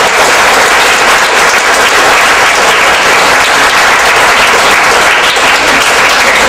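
A hall audience applauding steadily, a dense sustained clapping that fades out just after the end.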